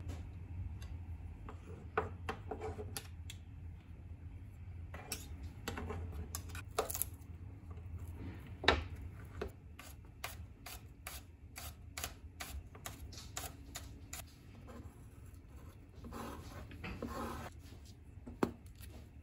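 Kitchen knife chopping garlic on a plastic cutting board: scattered knocks, then a fast, even run of about three to four taps a second. Near the end comes a short scraping rustle from a jar's screw cap being twisted.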